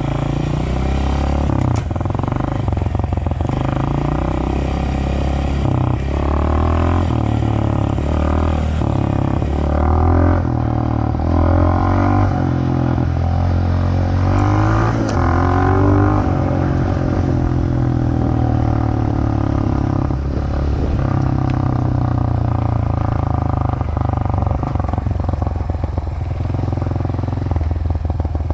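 Honda dirt bike engine running while being ridden, its revs rising and falling again and again as the throttle is worked.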